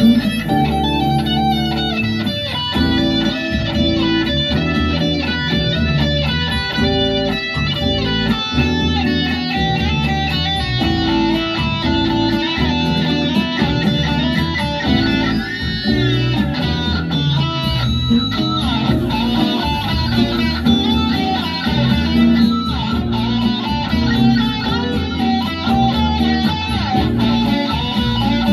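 Les Paul-style electric guitar playing a melody of picked notes, with a string bend about halfway through.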